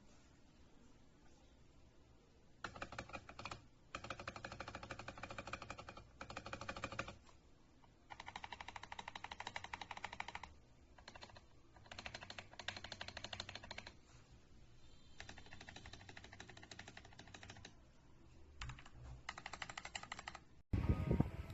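Mechanical keyboard switches being typed on in a sound test: bursts of fast clacking keystrokes, each a second or two long, with short pauses between them. Less than a second before the end the sound cuts abruptly to louder, fuller audio.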